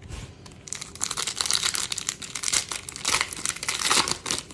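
The wrapper of a 2022 Bowman baseball card pack being torn open and crinkled by hand, a dense plastic crackle from about a second in until near the end.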